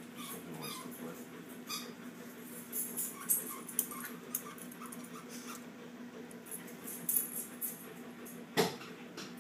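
Shih Tzus play-wrestling: scuffling and clicking with faint short yips, and a sharp knock near the end.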